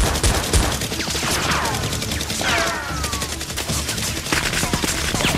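Rapid automatic gunfire sound effect dubbed over a Nerf blaster firing, a dense run of shots with several falling whistles among them.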